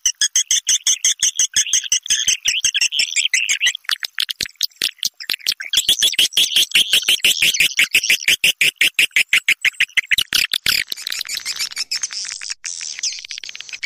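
Edible-nest swiftlet lure call, of the kind played to draw swiftlets into a nesting house: a loud, dense train of rapid high chirps and clicks, many a second. About three quarters of the way through it gives way to a softer, more continuous twittering.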